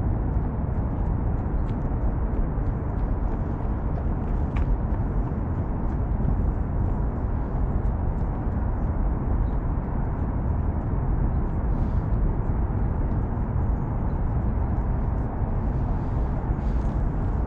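Steady low rumble of traffic noise from around the Seongsan Bridge, carried across the Han River, with faint small clicks above it.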